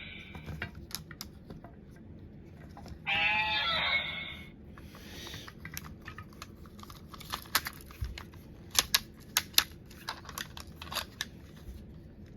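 Plastic clicks and snaps from handling a Kamen Rider W Fang Memory toy, many in the second half. About three seconds in there is a short, wavering electronic sound effect from the toy.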